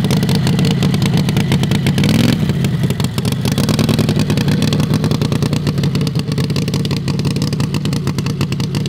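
Heavily modified Harbor Freight 670cc V-twin engine of a drag rail running loud. Its revs rise briefly about two seconds in, then it runs steadily as the rail drives off across the grass.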